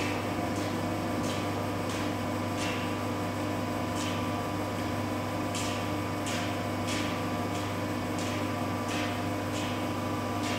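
Amada FBDIII-8025 hydraulic press brake idling under power, its pump and motor giving a steady hum. Short, hissy ticks recur about every two-thirds of a second.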